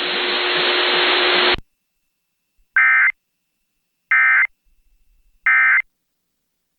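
Emergency Alert System end-of-message data bursts: three short, identical, buzzy digital squawks about a second and a half apart, the SAME 'NNNN' code that marks the end of the severe thunderstorm warning. Before them a steady hiss of static runs for about a second and a half and then cuts off.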